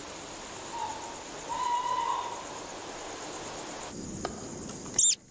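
An owl hooting twice, a short hoot then a longer one, over a steady high chirring of night insects. Near the end a brief, sharp, high squeak is the loudest sound.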